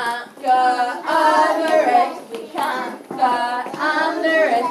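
Young children singing and chanting together in short, rhythmic phrases.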